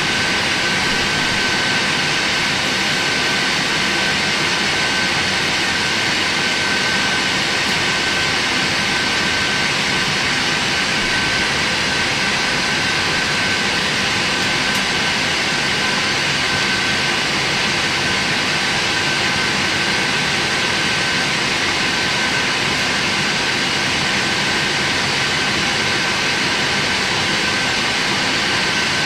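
Steady cabin noise inside a Boeing 747-8 taxiing: its jet engines and the cabin air supply make an even hiss with a thin steady whine, unchanging in level.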